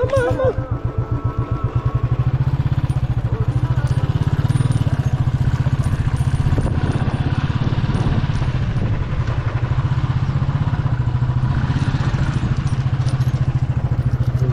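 Royal Enfield Classic 350's single-cylinder engine thumping at low speed as the motorcycle is ridden over rough, broken off-road ground. The beat is slower and uneven at first, then quickens into a steady rhythm about two seconds in.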